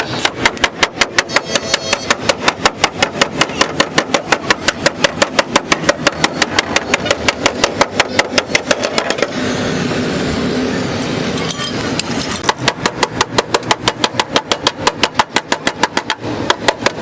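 Rapid, even hammer strikes on sheet metal, about six a second, in two long runs with a pause of a few seconds about halfway through.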